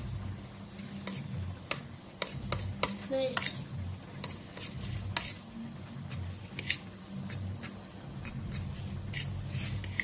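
A metal fork stirring and mashing grated hard-boiled egg and cottage cheese in a plastic bowl, with irregular clicks and scrapes of the fork against the bowl.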